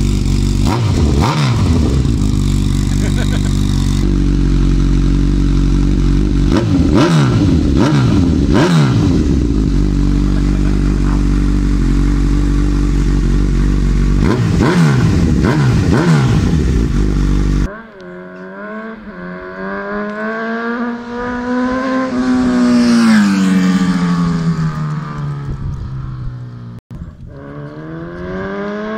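Honda CB1000R inline-four idling loudly through a Scorpion slip-on exhaust with its catalyst replaced by a straight pipe, blipped sharply three times. After an abrupt cut about two-thirds of the way in, a motorcycle accelerates up the street through the gears and passes by, then starts accelerating again near the end.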